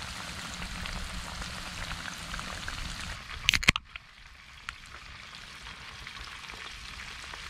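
Breaded white bass roe frying in hot oil, a steady sizzle. About three and a half seconds in come a few sharp pops or knocks, and after them the sizzle is quieter.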